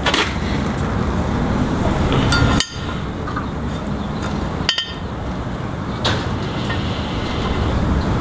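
A few sharp metallic clicks and taps from marking tools set against a steel brake disc, over a steady background rumble.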